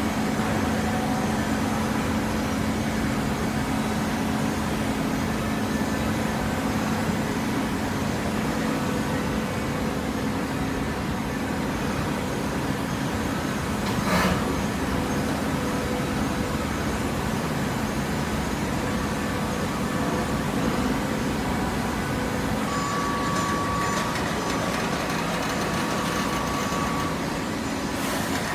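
Hydraulic cardboard baling press running steadily, its motor and pump giving an even hum with a single sharp knock about halfway through.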